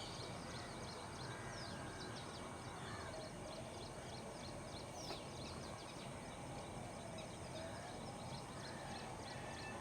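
Morning outdoor ambience: many small birds chirping continuously over a steady low hum of distant traffic.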